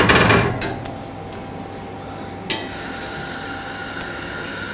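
Metal tongs scraping and clattering on the grill grate of a Josper charcoal oven as a grilled steak is lifted out, loudest in the first second, then a steady sizzling hiss.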